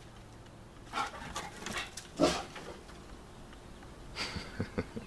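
Cane Corso making a few short, sharp vocal sounds: one about a second in, the loudest just after two seconds, and a quick cluster near the end.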